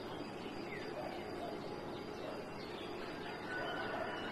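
Birds chirping, short high calls scattered over a steady background hiss.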